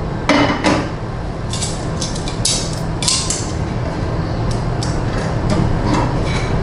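Metal tongs clinking and scraping against a frying pan in a series of sharp clicks as julienned carrot and zucchini are lifted out.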